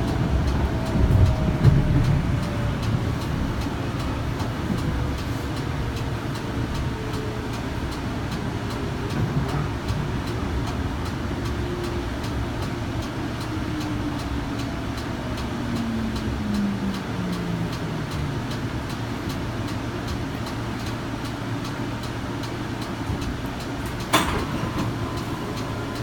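Kinki Sharyo light rail vehicle decelerating under braking: its IGBT inverter and AC traction motors whine in a slow, steady fall in pitch over the rumble of wheels on rail, heard from inside the car. A sharp knock sounds near the end as the car comes to rest.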